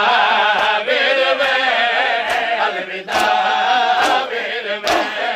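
Men chanting a noha, a Shia mourning lament, over rhythmic matam: open-handed slaps on bare chests landing together a little under a second apart.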